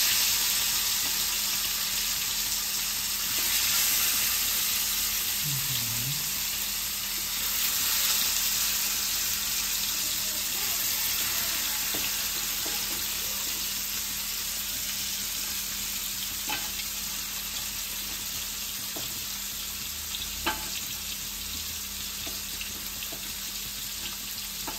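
Masala-coated pearl spot and other small fish shallow-frying in hot oil, sizzling steadily. The sizzle swells each time another fish is laid in, three times in the first eight seconds, then eases a little, with a few sharp pops of spitting oil in the second half.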